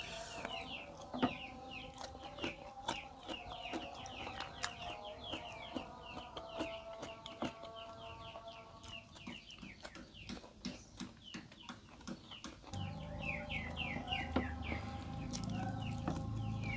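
Chickens in the background: chicks peeping in a steady run of quick falling chirps, with lower hen calls beneath, and scattered light clicks. A low hum comes in near the end.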